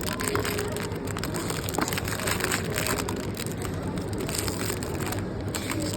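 Packaging of a mystery toy figure being handled and pulled at while someone tries to open it: a steady crinkling, rustling crackle with many small clicks.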